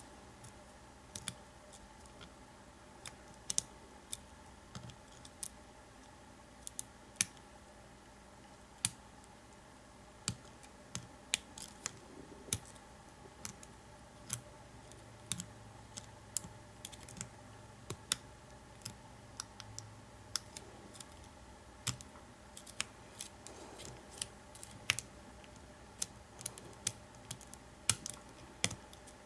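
Sharp, irregular metallic clicks of a hook pick working the pin stacks of an American 700 series padlock under pry-bar tension, a couple a second at most. The lock is not giving way; the picker suspects the pins are overset.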